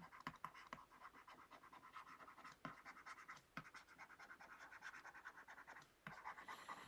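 Faint scratching and fine ticking of a stylus writing out a line of handwriting on a tablet screen.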